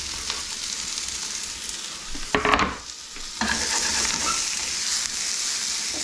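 Sliced cabbage and onion sizzling in bacon fat and butter in a hot pan. About two and a half seconds in there is a brief louder burst of stirring, after which the sizzle runs louder and brighter.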